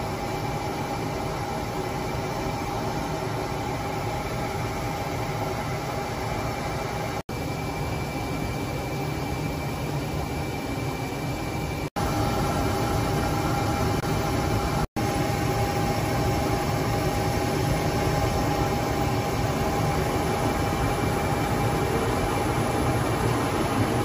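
Steady cockpit noise of a CF-18 Hornet fighter in flight: engine and rushing air with a steady whine through it. It cuts out abruptly three times for an instant, and is a little louder after the second break.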